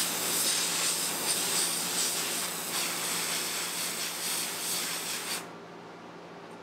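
Can of compressed air duster spraying in a long steady hiss onto wheel bearings to freeze them, shrinking them to fit into the heated Garelli VIP engine case; the hiss cuts off about five seconds in.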